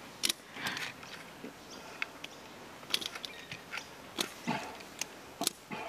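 Sporadic light clicks and clinks of metal being handled, with faint rustling: a rusty pulley just pulled up on a fishing magnet.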